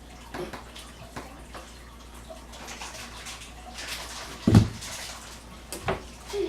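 Scattered knocks and bumps of a body bracing and shifting against kitchen cabinets and a fridge, over a steady hiss. One heavy low thump comes about four and a half seconds in.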